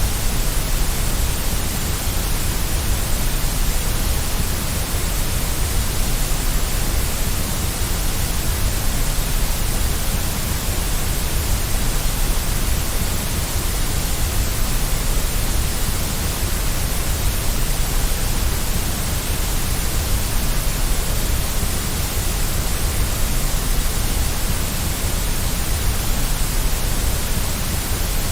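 Steady, unchanging white noise: an even hiss with a low rumble beneath it.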